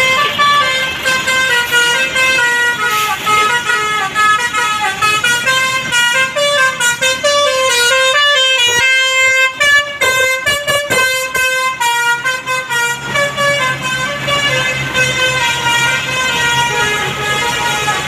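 Bus telolet horn, a multi-tone Basuri musical air horn, playing a fast tune of quickly changing notes without a break. From about two-thirds of the way in, a low engine hum sits under it.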